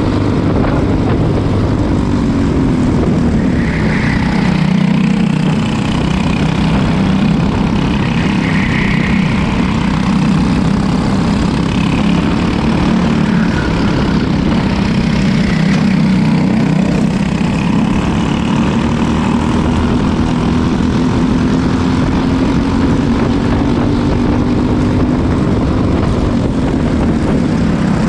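Racing go-kart engines at full race pace, heard from on board a kart, with the engine pitch sinking and climbing again over several seconds as the driver comes off and back onto the throttle. Wind and tyre noise run underneath.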